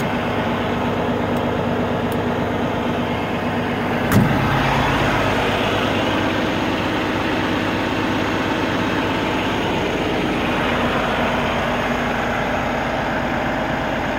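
Peterbilt 389 semi truck's diesel engine idling steadily, with a single knock about four seconds in, after which the engine sounds deeper.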